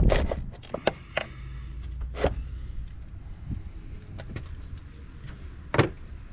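Scattered metallic clicks and knocks of a socket wrench being worked on a car battery terminal nut and then taken away, a cluster at the start and a sharper knock near the end, over a low steady rumble.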